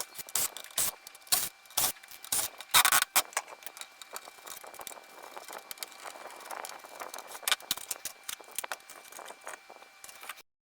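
Irregular clicks, knocks and rattles of a PlayStation 3's plastic and metal casing parts being handled as the console is taken apart. The loudest knocks come in the first few seconds, and the sound cuts off abruptly near the end.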